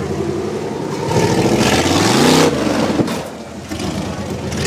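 Off-road trial buggy's engine revving hard as it climbs, its pitch rising to a peak about two seconds in and then falling back to a lower speed, with a sharp knock about three seconds in.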